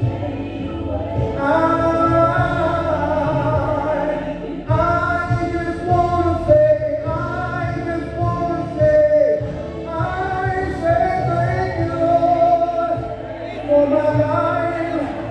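A man singing a gospel song into a handheld microphone, amplified over a PA, holding long notes that slide between pitches.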